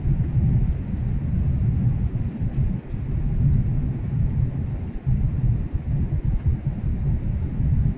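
Airliner cabin noise during the descent: a loud, steady low rumble of engines and airflow that wavers in loudness.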